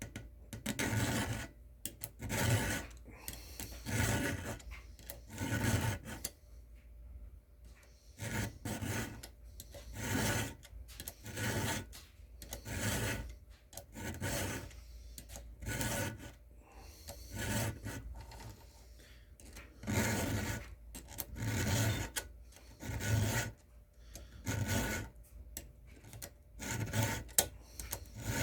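File rasping across chainsaw chain teeth during hand sharpening, in steady strokes about one every second and a half.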